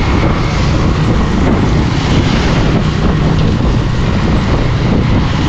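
Steady wind noise buffeting the microphone of a motorcycle riding at speed in the rain, with a low rumble of engine and tyres on the wet road underneath.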